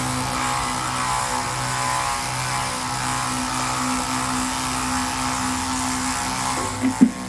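Dual-motor 12 V diaphragm spray pump running steadily with both motors on at open, unpressurised flow, a steady hum, filling a 2-litre bottle. A couple of short knocks near the end.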